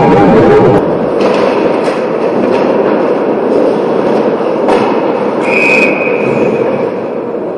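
Ice rink sounds of a hockey game in play: skates scraping on the ice, with a few sharp clacks of sticks and puck, and a brief high squeal a little after halfway. A pitched sound carried over from before cuts off under a second in.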